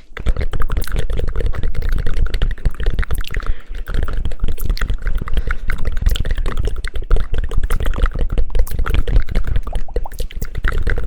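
Rapid, dense hand clapping and patting close to an ASMR microphone, a fast unbroken run of soft clicks with heavy bass, like heavy rain. It starts abruptly and keeps up without a break.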